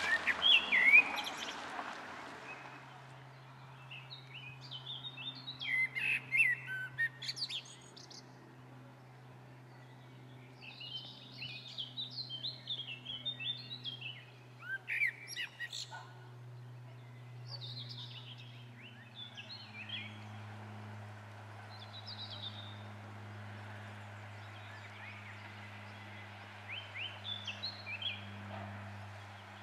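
Small songbirds singing in short bursts of quick, high chirping notes, phrase after phrase, over a steady low hum that drops slightly in pitch about twenty seconds in.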